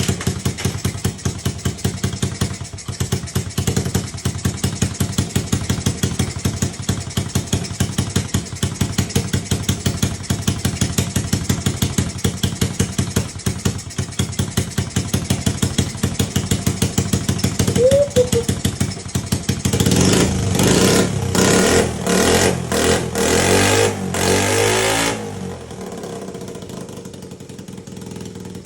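Honda Z50's small single-cylinder four-stroke engine running at idle with a fast, even putter through its newly fitted exhaust, with the idle freshly adjusted. About twenty seconds in, the throttle is blipped several times in quick surges, then the engine settles much quieter near the end.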